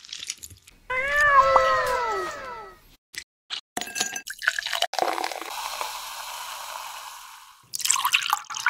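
A cat meows once, a drawn-out meow falling in pitch, about a second in and the loudest thing here. Afterwards cubes clink as they drop into a glass, followed by a steady hiss of liquid pouring over ice, louder near the end.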